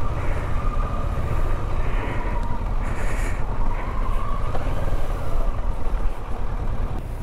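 Kawasaki Versys 650 motorcycle's parallel-twin engine running, a steady low rumble with a faint whine above it.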